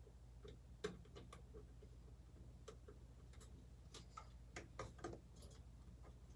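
Faint, irregular light clicks and taps of small PC hardware being handled: CPU cooler standoffs and mounting pieces being lined up and pushed into place, over a low steady hum.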